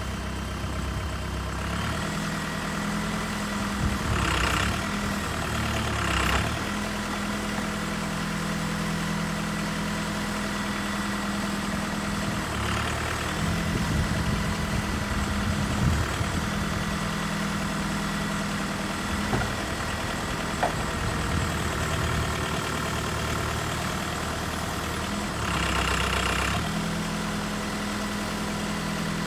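Tractor-loader-backhoe engine running steadily while the boom and bucket dig a hole. Its note shifts in pitch and strength every few seconds as the hydraulics take load. It grows louder for a couple of seconds near the end.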